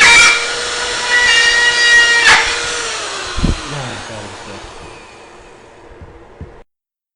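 Electric power tool running with a steady whine and two harsh bursts, then slowing with falling pitch and fading before it cuts off abruptly.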